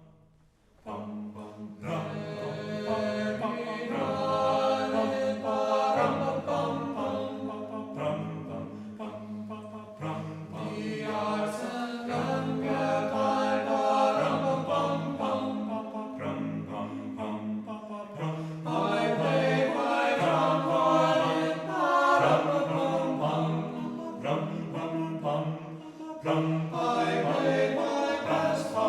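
Choral music: a choir singing sustained chords over a stepping low line, starting about a second in.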